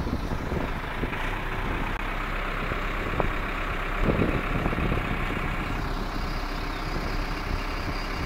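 Tractor diesel engine running steadily while its three-point hydraulics raise a forklift carrying a pallet of concrete blocks.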